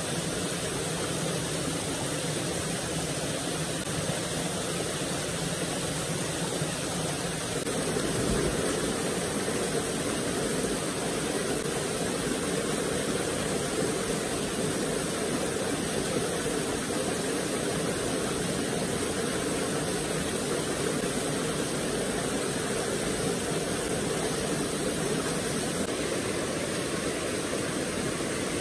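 White water rushing over a small river weir and rock cascade: a steady, loud rush. Its tone shifts once, about eight seconds in.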